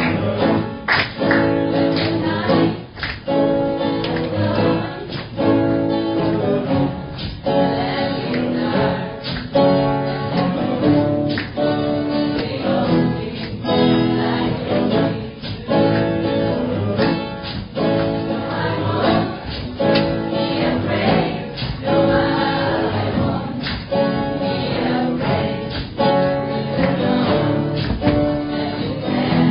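A group of people singing together, accompanied by two strummed acoustic guitars keeping a steady beat.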